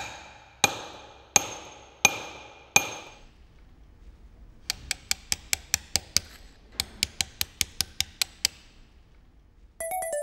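A stonemason's hammer striking a steel chisel cutting letters into stone. There are five sharp, ringing blows about 0.7 s apart, then a run of lighter, quicker taps, about four a second, in the middle of the clip.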